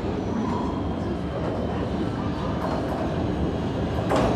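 PATH subway train running in toward the underground platform: a steady low rumble of wheels on rail that grows slightly louder as it nears, with one short sharp burst of noise about four seconds in.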